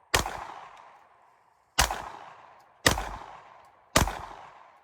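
Four pistol shots at an uneven pace, the first two about two seconds apart and the last three about a second apart, each followed by a trailing echo that dies away.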